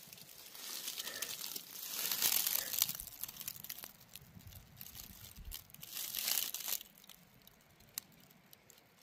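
Dry fallen leaves rustling and crackling, with two louder spells of crinkling, about two seconds in and again about six seconds in.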